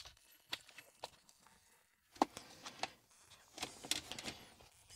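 Audi A3 8V centre-console trim being handled and pressed into place by hand: scattered light plastic clicks and creaks, with a closer cluster of them a little before four seconds in.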